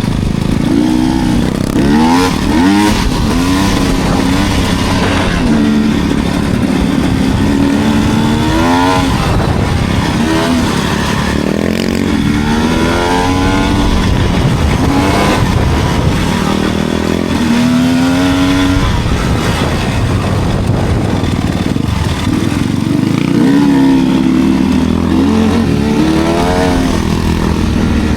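Enduro dirt bike engine being ridden hard, revving up and down over and over, with several rising sweeps in pitch as the throttle is opened.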